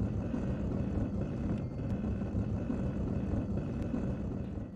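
Car driving along: a steady low engine and road rumble that cuts off suddenly near the end.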